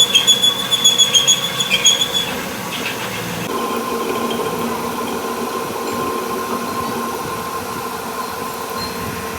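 A machine running with a steady high whine and a quick rhythmic pulsing. About three and a half seconds in, it changes to a lower, steadier whine.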